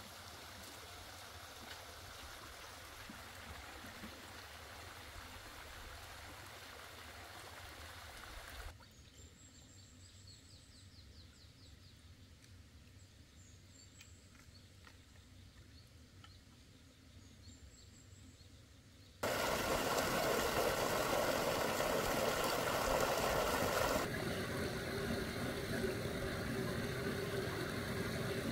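Water running and trickling at a drained pond. Then a quieter stretch with a few faint, high chirps. Then, about two-thirds of the way in, a much louder, steady rushing noise starts suddenly and eases a little near the end.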